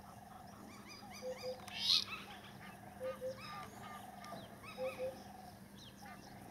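Birds calling: one repeats the same short phrase about every two seconds, a low double hoot with a quavering trill, while other birds chirp higher. A brief hiss about two seconds in is the loudest sound.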